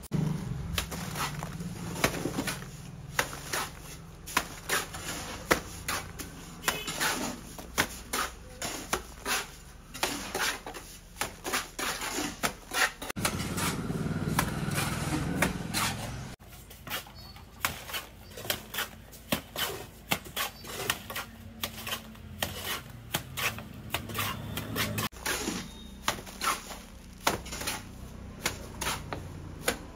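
Steel mason's trowel scraping and slapping wet cement mortar onto concrete, in many short, irregular strokes.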